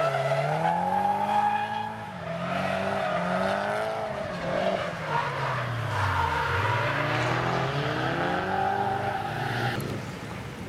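Nissan Silvia S15 drift car sliding through the corners, its engine revving up and down several times over squealing tyres. The sound falls away about a second before the end as the car drives off.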